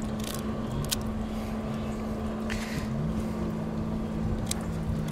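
Boat engine running steadily, with a lower note that rises and falls a little, under a few sharp clicks as scissors snip open a mackerel's belly.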